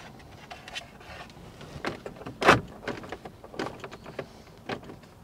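Plastic instrument-cluster bezel and gauge panel of a 1973 Opel Manta's dash being handled and pressed into place. A series of light clicks and knocks, the sharpest about two and a half seconds in.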